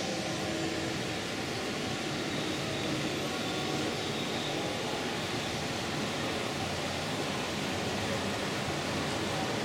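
Steady rumble of G-scale model trains running on the layout's track, blended with a constant background hum.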